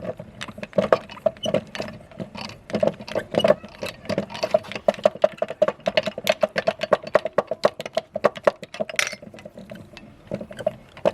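Meat grinder crushing hard lollipop candy: a dense run of sharp cracks and crunches over a rhythmic churning from the turning grinder, thinning out about nine seconds in.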